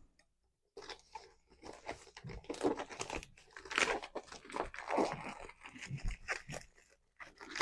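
Plastic packaging crinkling and rustling in irregular bursts as a plastic ramen bowl is opened and unpacked by hand.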